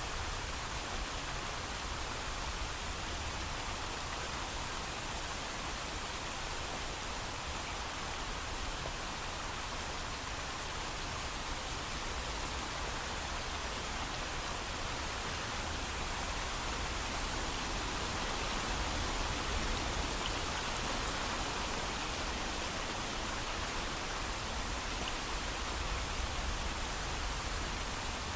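Steady heavy rain with no thunder, an even continuous hiss with a low rumble beneath it.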